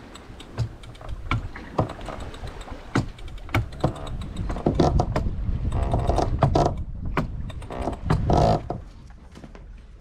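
A sailing yacht's self-tailing winch being cranked with a winch handle to haul in a line, its pawls ratcheting in a run of quick, uneven clicks that are busiest in the second half.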